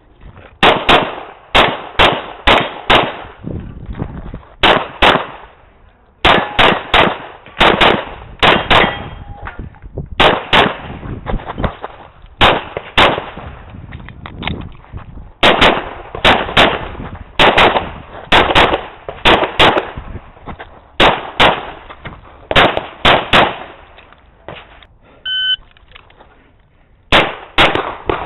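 Rapid pistol fire from a .40-calibre 2011-pattern pistol, the shots coming mostly in quick pairs and in strings of several, with short pauses between strings. About 25 seconds in, an electronic shot timer gives a single start beep, and firing begins again a couple of seconds later.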